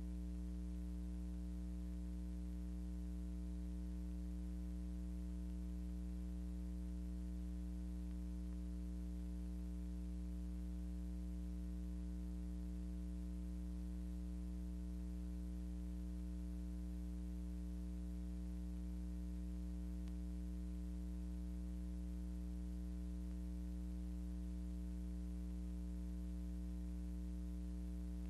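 Steady low electrical hum, a mains-type buzz with a faint hiss over it, unchanging throughout; nothing of the film's events is heard.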